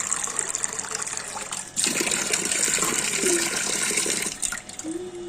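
Running water gushing and splashing, with a brief break about two seconds in and dying away near the end.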